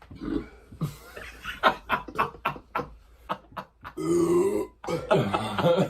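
A man belching: a drawn-out, pitched burp about four seconds in, after a run of short sharp sounds.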